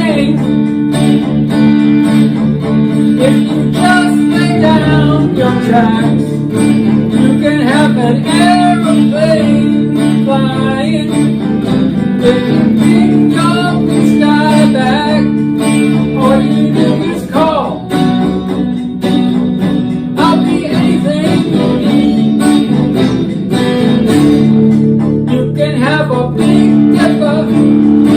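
Music with guitar: sustained low chords under a wavering, pitch-bending melody line.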